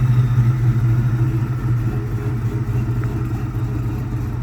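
Engine idling steadily after a catastrophic failure while it burns off residual oil. The owner says it is still misfiring and suspects cylinder number 3.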